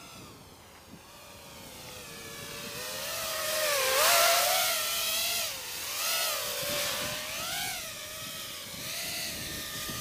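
Eachine Wizard X220S FPV racing quadcopter's brushless motors and propellers whining in flight, the pitch rising and falling again and again with the throttle. It grows louder as the quad comes in close, loudest about four seconds in.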